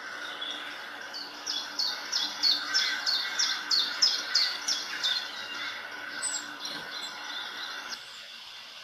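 Graphite pencil hatching on drawing paper: a quick run of short scratchy strokes, about three to four a second, loudest in the first half and fading toward the end.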